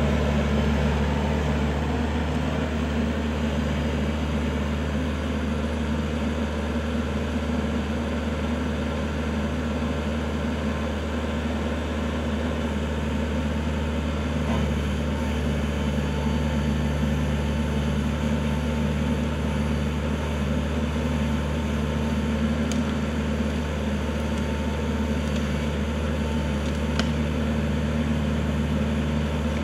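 Kubota L4400 tractor's diesel engine running at a steady speed, with a constant low drone.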